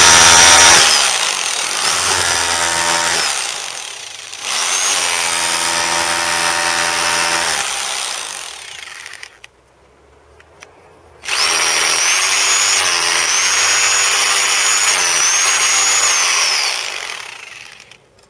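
Bosch GBH 2000 2 kg hammer drill with a chisel bit, hammering out mortar and a crumbling brick. It runs in three bursts of several seconds each, with a pause of about three seconds before the last. The motor pitch sags under load and winds down as each burst ends.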